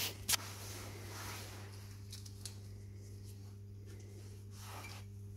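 A sharp click near the start as jumper-lead clamps are put on a car battery's terminal to power a bench-tested starter motor, then a faint steady low hum.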